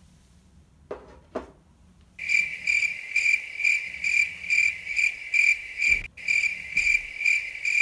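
Cricket chirping sound effect: a loud, high, pulsing trill, about two or three chirps a second, that starts abruptly about two seconds in. Two light knocks come a second or so before it.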